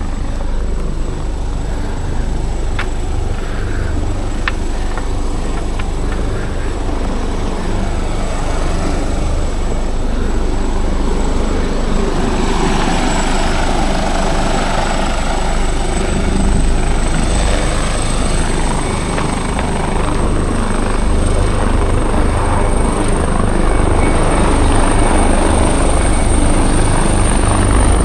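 Helicopter running nearby: a deep steady rumble with a thin high whine that edges up in pitch, getting louder toward the end.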